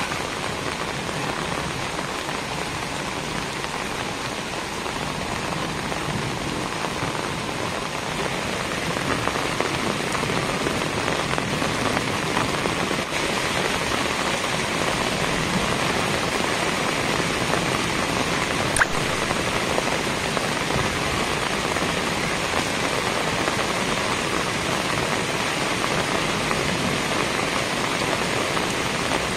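Steady rain falling on a wet, puddled dirt yard, an even hiss throughout, with one short click about two-thirds of the way through.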